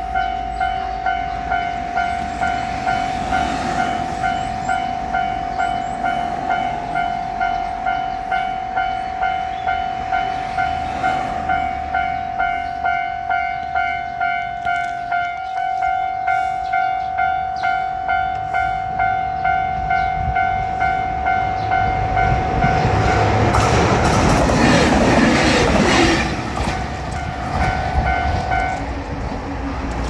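Japanese level-crossing warning bell clanging steadily at about two strikes a second. A diesel railcar passes loudly over the crossing about three-quarters of the way through. The bell stops shortly before the end as the crossing clears.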